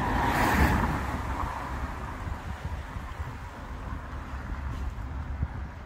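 A road vehicle passes close by, its tyre and engine noise swelling to a peak about half a second in and fading away over the next second or so. Underneath are wind buffeting the microphone and a low traffic rumble.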